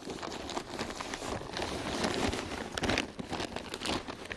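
Dry rustling, crinkling and crunching of material being handled, in irregular bursts that are loudest around the middle and fade near the end.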